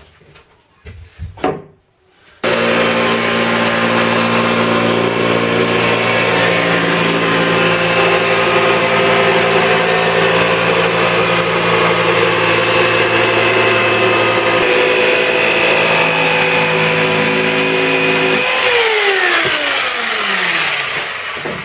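Electric power saw cutting a sheet of plywood: it starts suddenly about two seconds in and runs steadily, dropping a little in pitch partway through. Near the end it is switched off and winds down with a falling pitch.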